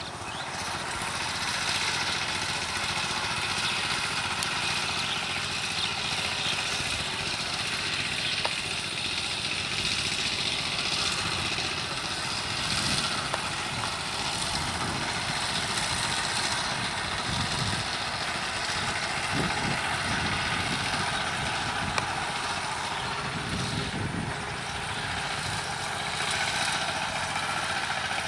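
Two-wheel power tiller's single-cylinder diesel engine running steadily under load as its cage wheels churn through deep mud.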